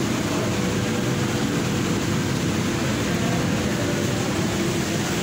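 Steady low background rumble of a large indoor hall, the kind made by ventilation and room noise, with a faint steady hum and no distinct events.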